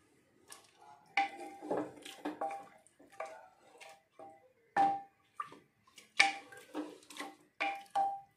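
Wooden spatula stirring rice and peas in an aluminium pressure cooker, knocking against the pot's sides in a series of irregular clunks, each ringing briefly.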